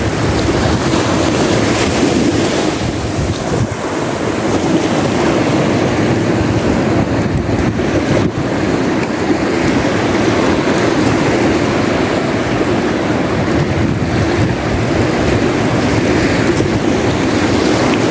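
Surf breaking on a sandy beach with wind rushing over the microphone, a steady loud noise.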